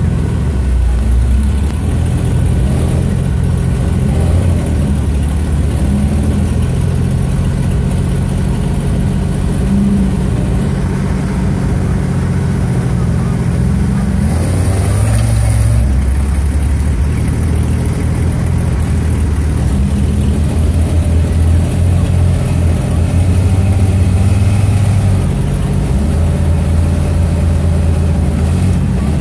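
Jeep Cherokee XJ's engine running at low revs under load as it crawls over a log and rocks, the revs rising and falling as the driver works the throttle.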